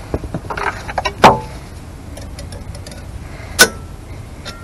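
Metal tools clicking and clinking against the shoes and return springs of a Morris Minor 1000 rear drum brake while the shoes are being fitted. Two sharp metallic clacks that ring briefly stand out, one just over a second in and one about three and a half seconds in.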